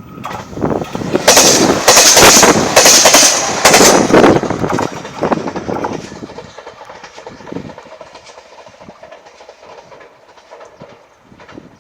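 A JR Shikoku diesel train passing close by. It builds quickly to a loud passage with a run of sharp, clattering bursts, then fades away over the second half.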